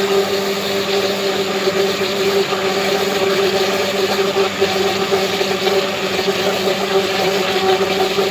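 Electric blender motor running steadily at one speed, beating chocolate cake batter with cocoa in it.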